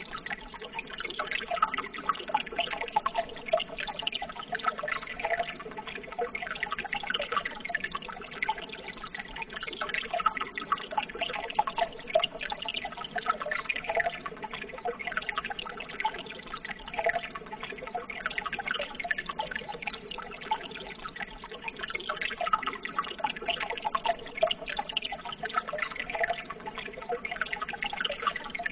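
Running water trickling and burbling steadily, a constant patter of small splashes with no pauses.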